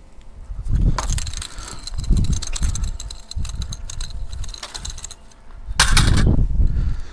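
Wind buffeting the microphone, with a run of clicks and rattles as a landing net holding a trout is hauled up out of the water. A louder scrape about six seconds in as the net is set down on the concrete seawall.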